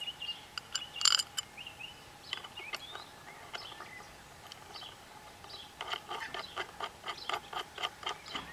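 Light clicks and taps of a metal operating arm being handled and fitted onto the shaft of an automatic coop door opener, with birds chirping faintly. From about six seconds in there is a quick run of regular clicks, about five a second.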